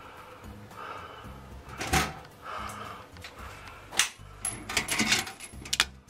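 Sheet-metal exhaust fan housing knocking and clattering as it is handled and fitted into the ceiling opening: a sharp knock about two seconds in, another at four seconds, then a quick run of clicks and rattles.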